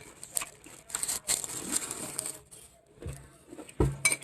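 Crunchy chewing of a mouthful of chocolate Cheerios in milk, an irregular crackling crunch, with a dull thump near the end.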